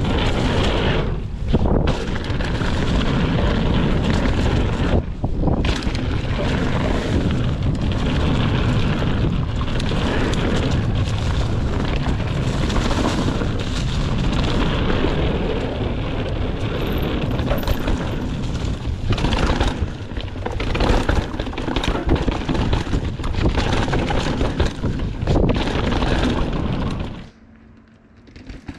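Mountain bike ridden fast down a rough trail, heard from a chest-mounted camera: heavy wind buffeting on the microphone over the rumble of knobby tyres on dry leaves and dirt and the bike rattling over rough ground. It drops away abruptly near the end to much quieter outdoor ambience.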